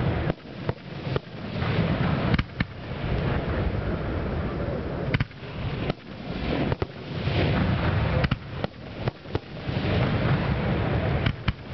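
Aerial fireworks shells bursting overhead during a display: a string of sharp bangs, some in quick clusters, with a continuous noisy rumble between them.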